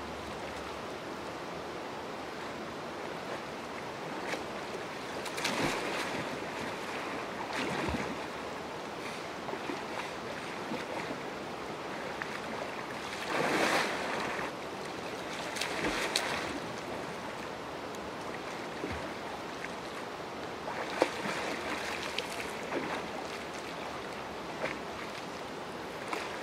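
Water lapping with wind on the microphone, and several louder splashes from a kayak paddle and hull worked hard on flat river water, the biggest about halfway through.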